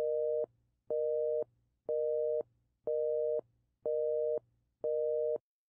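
North American telephone busy signal: six beeps of a steady two-note tone, each about half a second long with half-second gaps, about one a second.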